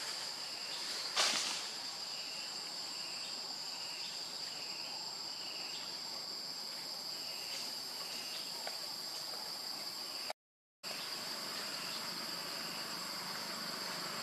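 Steady high-pitched droning of forest insects. A sharp knock comes about a second in, and a row of short repeated chirps follows between about two and eight seconds in. The sound cuts out completely for half a second about ten seconds in.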